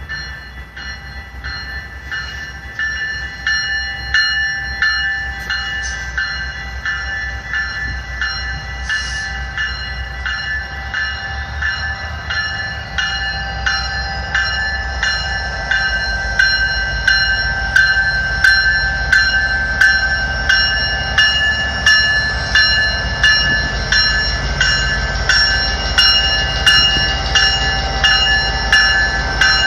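Level-crossing warning bell ringing in a steady rhythm of about two strokes a second, while a train's low rumble builds and grows louder from about halfway in.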